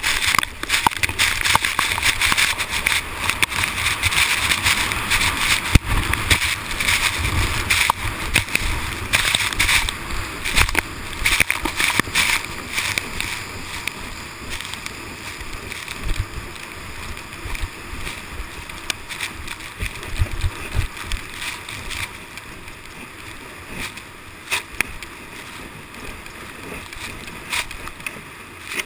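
Plastic sled sliding fast over crusty snow: a continuous hiss and scrape of the sled's base, broken by frequent bumps and knocks as it rides over the uneven surface. Louder for the first dozen seconds, then settling to a lower, steadier slide.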